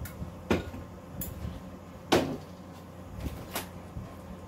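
A few separate knocks and clunks of kitchen handling, such as a glass pitcher being set down and a cupboard or fridge door shutting. The loudest knock comes about two seconds in, over a steady low hum.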